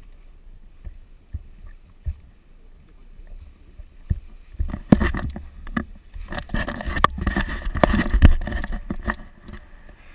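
Wind buffeting the microphone of a selfie-stick camera in flight under a tandem paraglider. Light knocks at first, then loud, uneven gusts of buffeting from about halfway through, dying down near the end.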